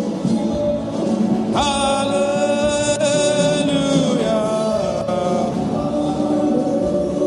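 Gospel worship music: keyboard with singing voices. A long high note is held from about a second and a half in until about four seconds.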